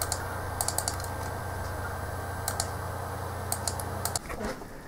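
Computer keyboard keys clicking in a few short groups of two to four strokes, over a steady low hum that cuts off about four seconds in.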